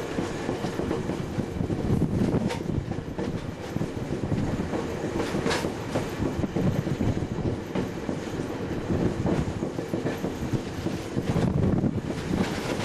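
Passenger train running on the track, heard from aboard: a steady rumble of wheels on rails with a few sharp clacks.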